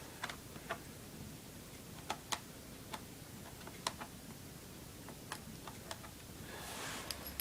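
Small screwdriver working a tiny screw loose from the bottom of an Acer Aspire 7741G laptop: about a dozen light, irregularly spaced metal clicks and ticks. A soft rustle comes near the end.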